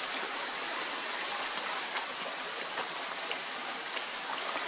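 Shallow rocky creek running steadily over stones, with a few small splashes as a dog wades through the water.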